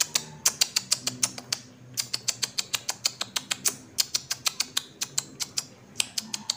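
Typing sound effect: rapid key clicks, about nine a second, in runs broken by short pauses.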